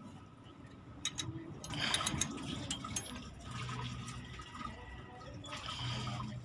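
Light metallic clicks and handling noise as a nut is spun by hand onto a bolt on a truck's steering knuckle, with a louder rustle about two seconds in and a faint low hum in the background.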